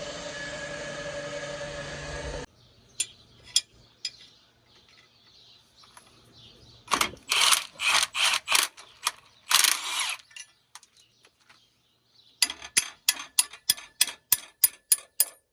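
Music that stops about two and a half seconds in, followed by mechanical clicking: a cluster of rasping strokes around the middle, then a quick run of about a dozen sharp ratchet-like clicks, about four a second, near the end.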